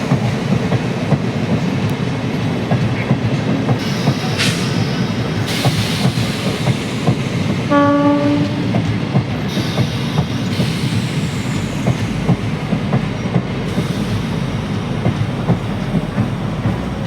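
Train running along the rails, wheels clattering over the rail joints in a steady stream of clacks, with one short horn blast about eight seconds in.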